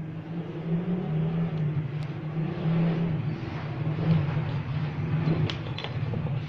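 A steady low hum whose level wavers slightly, with two light clicks near the end.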